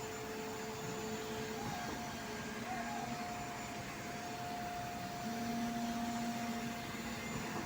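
Concrete pump trucks and a truck mixer running on a pour, giving a steady mechanical hum and hiss with a few held whining tones.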